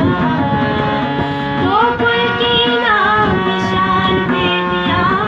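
Bundeli folk song: a woman singing a wavering, gliding melody to a hand drum beaten with the fingers.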